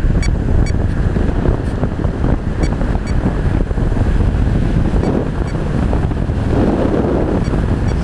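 Steady rush of airflow buffeting the onboard camera's microphone on an RC model plane descending to land, with no motor tone to be heard.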